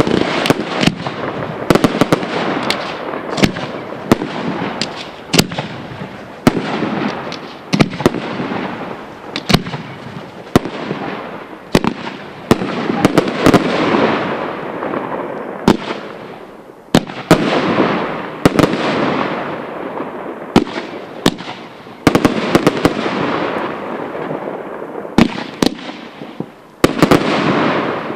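Fireworks display: aerial shells bursting in quick succession, with sharp bangs over a dense crackling rumble that swells and fades every few seconds.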